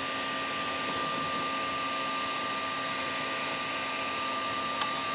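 Steady whir of small electric cooling fans, with a thin steady whine on top and a faint click near the end.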